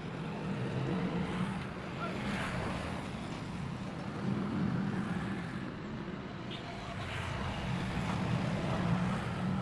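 A steady low motor rumble, like passing road traffic, that swells and eases every few seconds.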